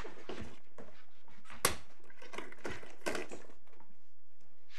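Paper rustling and pages being turned in bound court bundles, with a sharp tap about a second and a half in.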